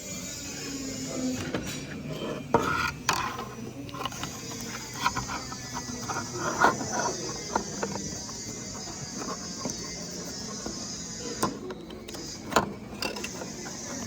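Irregular clicks, knocks and scraping of small robotic-arm parts being handled and fitted together, as a hinge arm is pushed into its holder. A few louder knocks stand out among the smaller clicks.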